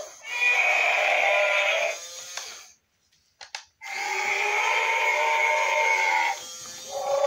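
Battery-operated walking toy dinosaur running, a steady buzzy whir from its motor and small speaker. It cuts out for about a second roughly three seconds in, with a couple of clicks, then starts again.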